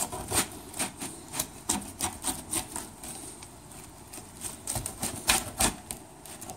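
Pizza cutter wheel rolling through a baked pizza's crust on a pizza pan: a run of sharp clicks and scrapes, a quieter pause partway through, then more clicks.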